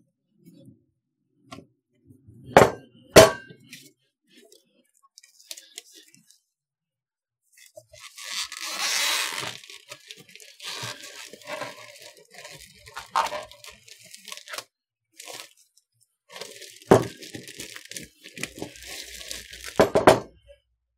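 A heavy wooden cutting board knocks twice against the wooden table. Then plastic stretch wrap crinkles and tears as it is peeled off the board, with more knocks near the end.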